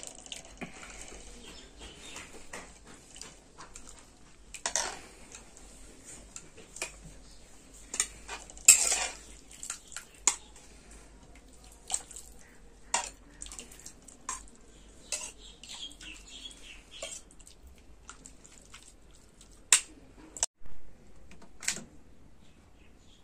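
A steel ladle clinking and scraping against a metal wok as broth is scooped up and poured over a bowl of noodles. The clinks are scattered and sharp, and the loudest comes about nine seconds in.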